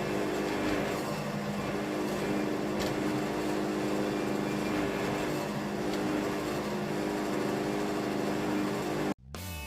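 Wood-Mizer LT70 sawmill's engine running steadily at an even speed. It cuts off abruptly about nine seconds in.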